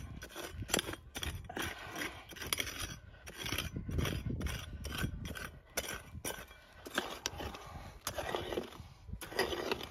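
Prospecting pick chopping and scraping into loose red dirt and small stones, a quick run of strikes two or three a second with gritty scrapes between them.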